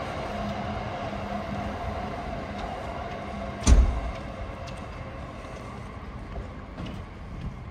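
Electric train running on the tracks alongside, a steady rumble with a hum that fades away over the first half as it moves off. A single heavy thump just under four seconds in is the loudest sound.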